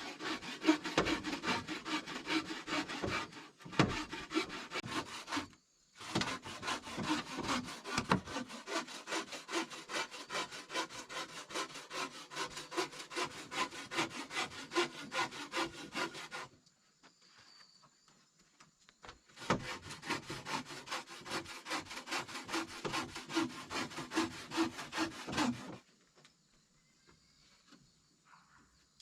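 Wood being sawn by hand in fast, even strokes. It runs in bouts: two brief breaks in the first six seconds, a long run to about sixteen seconds, a pause of about three seconds, then another six seconds of sawing.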